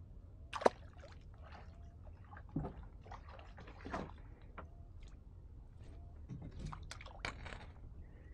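Water sloshing and lapping against a kayak hull, with scattered small clicks and knocks and one sharp slap about half a second in.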